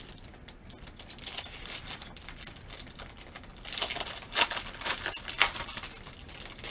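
Clear plastic packaging crinkling as a cross-stitch canvas is opened and pulled from its bag, in irregular crackles that are sharpest and loudest in the second half.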